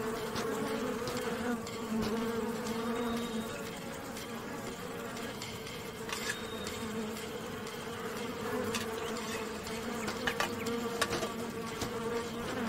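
A swarm of flies buzzing in a steady, wavering drone, with a few faint clicks scattered through it.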